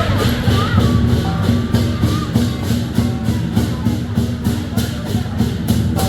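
Lion dance percussion band playing: a large drum with clashing cymbals keeping a fast, even beat of several hits a second.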